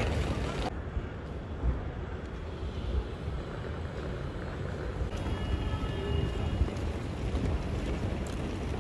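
Low, steady vehicle rumble with some wind on the microphone.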